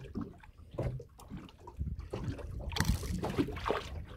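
Water splashing as a hooked corvina is pulled up through the surface and swung out of the water beside an aluminium boat. A louder spell of splashing comes about three seconds in, after low sloshing of water.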